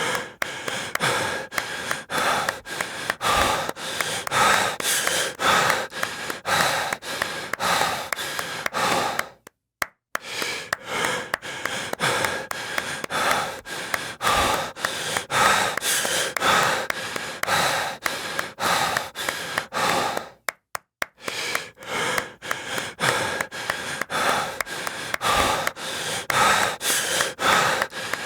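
Heavy breathing with sharp claps repeating steadily at about two a second. The sound drops out to silence briefly twice, about ten seconds apart.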